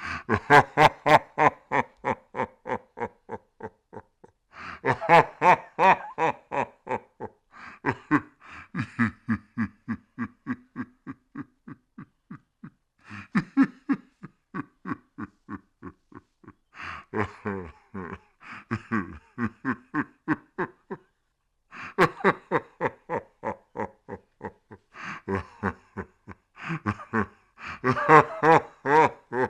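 Creepy ghost-laugh sound effect: a voice laughing in rapid pulses, about five a second, in repeated bouts a few seconds long with short pauses between.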